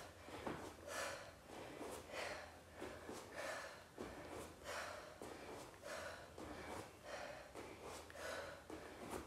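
A woman breathing hard from exertion, a steady run of quick, soft breaths about two a second.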